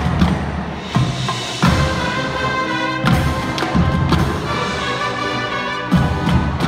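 Marching band playing: held brass chords over marching drums, with sharp drum hits every second or two.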